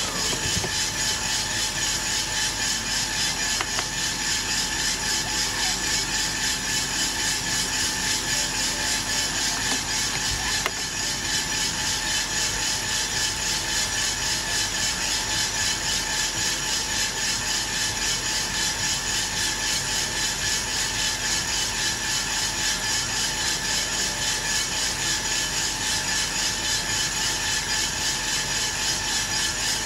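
Aillio Bullet R1 V2 coffee roaster running mid-roast: beans tumbling in its rotating drum over the steady hum of the fan, with an even, regular pulse.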